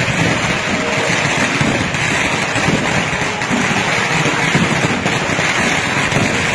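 Fireworks crackling without a break, many small bursts running together into a dense rattle.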